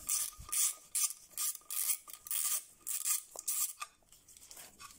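Ratchet wrench clicking through a series of short back-and-forth strokes as it undoes a nut on the engine, about two to three strokes a second, stopping shortly before the end.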